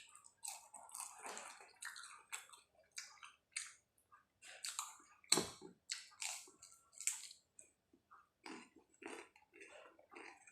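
Close-up chewing and wet mouth smacking while eating soft pisang keju (banana with cheese topping), a string of short, irregular smacks a few times a second, with one sharper smack about five seconds in.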